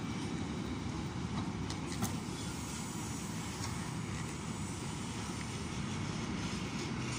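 Steady low rumble of a Great Western Railway passenger train alongside the platform.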